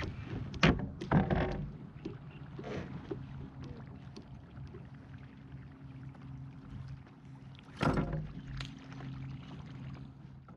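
Knocks and bumps against a plastic fishing kayak as the angler shifts in his seat and handles his rod. A low steady hum runs underneath. The sharpest knocks come in the first second and a half, and the loudest about eight seconds in.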